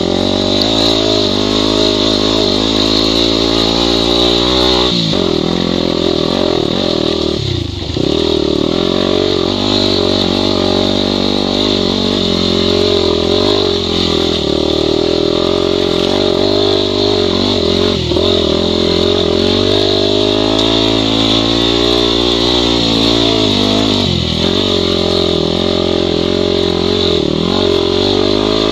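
Yamaha WR250 dirt bike's 250 cc single-cylinder four-stroke engine running under way, the revs rising and falling every few seconds with the throttle, with a brief drop about eight seconds in.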